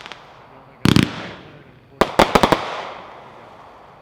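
Consumer fireworks cake (Super Fireworks' 36-shot Song of Fire) firing. About a second in comes a deep thump with a quick run of sharp cracks, and about two seconds in a volley of about five sharp reports, each dying away into a fading rumble and crackle.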